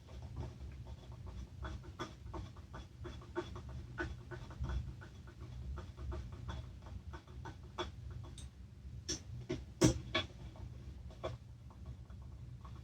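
Small, irregular clicks and taps of engine parts being handled and fitted, with one sharper knock about ten seconds in, over a low steady hum.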